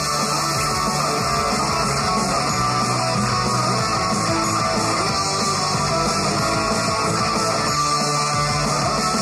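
Upbeat idol pop-rock song with electric guitar, played loud.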